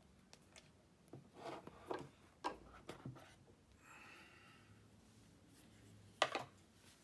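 Cardboard product packaging handled and opened by hand: a run of light taps and rustles, a soft sliding rub, then one sharp click near the end.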